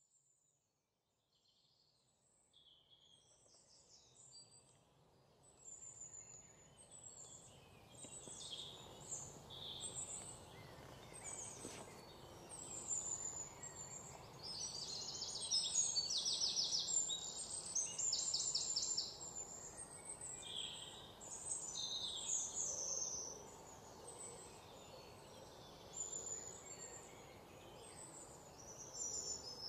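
Several birds chirping and singing, with bursts of fast trills, over a faint outdoor background noise. It rises from near silence over the first few seconds.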